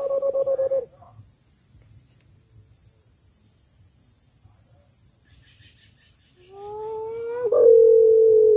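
Hooting lure call imitating the white-eared brown dove: a few level, pure hoots in the first second, then after a quiet stretch a long note that rises and holds steady, breaking once near the end. A steady high insect buzz sounds behind it.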